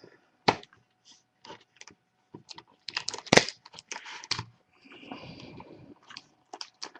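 Trading card box and pack wrappers being handled and opened by hand: scattered clicks and crinkles, a sharp knock a little over three seconds in, and a stretch of rustling crinkle around five seconds.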